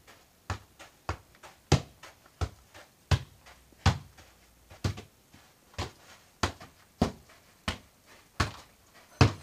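A football on a training tether headed again and again, about a dozen sharp thumps roughly every 0.7 s, with fainter taps in between.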